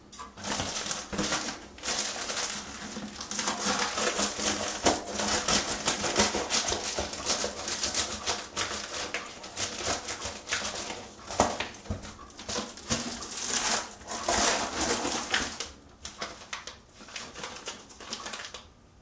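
Packaging being unwrapped by hand: continuous rustling and crinkling of paper and plastic, full of small crackles and taps, easing for a moment near the end.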